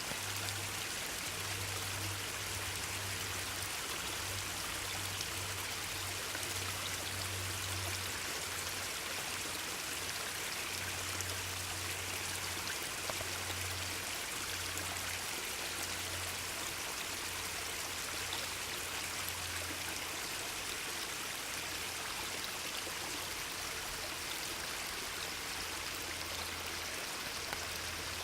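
Steady rushing of flowing water, like a stream, with an even hiss and no breaks. A faint low hum comes and goes underneath.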